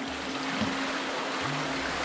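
Background music with a low bass line that steps from note to note, over a steady wash of sea water.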